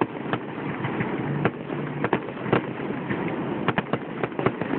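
Fireworks finale barrage: aerial shells bursting in quick, irregular succession, many sharp bangs several a second over a continuous rumbling noise.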